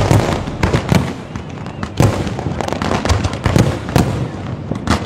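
Fireworks exploding overhead: a rapid string of loud booms, the heaviest right at the start and about two seconds in, with crackling between them.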